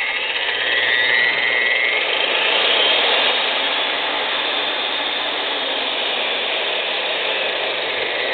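Milwaukee variable-speed magnetic drill press motor running forward. Its whine rises in pitch over the first three seconds as the variable speed is turned up, then runs steadily.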